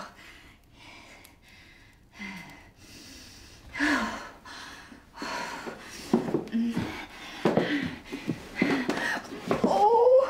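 A person's voice: gasps and breathing mixed with short voiced sounds, coming more often and louder after the first few seconds, with a rising cry near the end.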